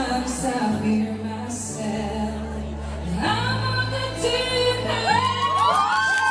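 A woman singing a duet song into a handheld microphone over an instrumental accompaniment with a steady bass line, her voice sliding through a run of notes near the end.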